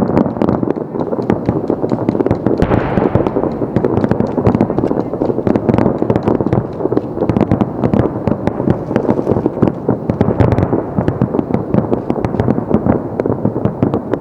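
Fireworks finale barrage: aerial shells bursting in rapid succession, many reports a second overlapping without a break.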